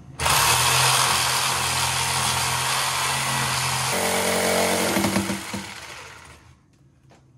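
Corded reciprocating saw cutting through an old cast iron drain pipe. It starts abruptly and runs hard; its pitch shifts about four seconds in, then it winds down and stops about six and a half seconds in.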